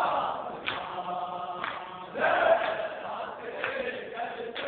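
A group of men chanting a noha, an Urdu mourning lament, together. Sharp claps of matam, hands striking chests in time, come about once a second.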